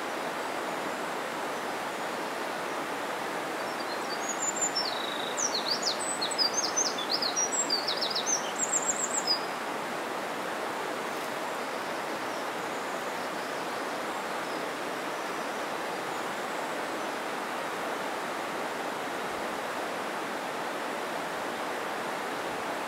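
Mountain stream rushing steadily, with a small bird singing a quick run of high, sweeping notes for about five seconds, starting about four seconds in.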